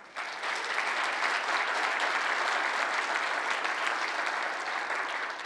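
An audience applauding, starting just after the close of a talk and tailing off near the end.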